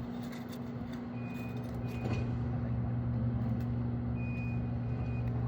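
A steady low engine hum, like an idling truck or motor, with a thin high beeping tone that comes and goes twice and a light tap about two seconds in.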